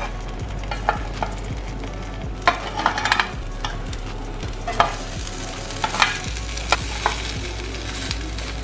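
Bread slices spread with potato-semolina mix sizzling on a hot grill pan, with short scrapes and taps of a metal spatula as the slices are lifted and flipped, several times through.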